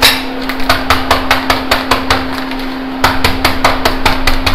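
Wooden rolling pin beating a packet of Oreo biscuits to crush them: a quick run of sharp knocks, about four or five a second, over a steady hum.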